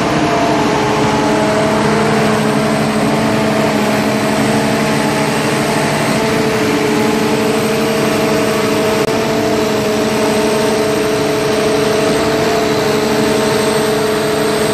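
KCP KTP 2210 stationary concrete pump running steadily, its power unit and hydraulic pumps making a loud, constant hum with a few steady tones.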